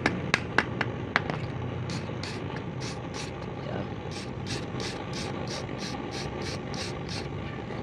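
A few sharp clicks in the first second, then a run of short scraping strokes, about three a second, as a hand tool scrapes the terminals of an alternator's rectifier plate to clean off the paint so the solder will take.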